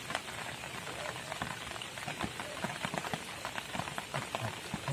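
Rain falling steadily, with many separate drops striking close by.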